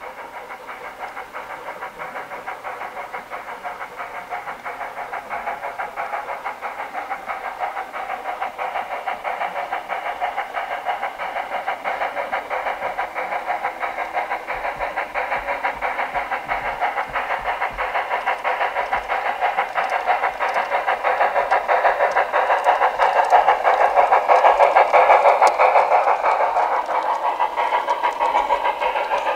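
G-scale garden-railway model train running along the track, a steady hissing rattle that grows louder as it comes closer, loudest a few seconds before the end.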